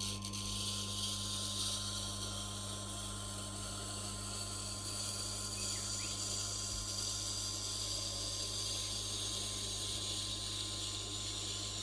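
Knife blade held in a jig against the turning stone of a Tormek T8 wet grinder, giving a steady hissing grind over the machine's motor hum; the grinding starts right at the beginning as the edge meets the stone.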